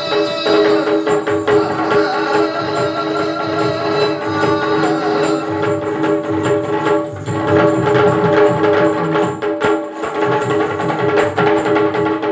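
Yakshagana accompaniment: fast, dense drumming, typical of the chande and maddale, over a steady held drone.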